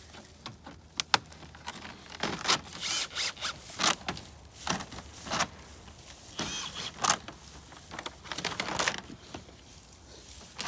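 Metal mobile-home skirting trim being handled and fitted by hand: a string of short scraping and clanking noises with sharp clicks, one especially sharp about a second in.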